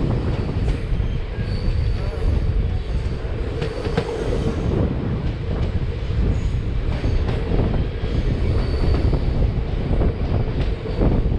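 Running noise of a moving passenger express train: a steady rumble of wheels on rails, with scattered clacks and a faint high wheel squeal now and then.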